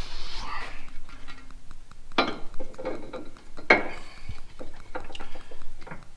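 Hard plastic and metal parts clattering and clicking as they are handled, with two louder knocks about two and about three and a half seconds in. These are typical of the car's plastic engine-bay trim being fitted back on.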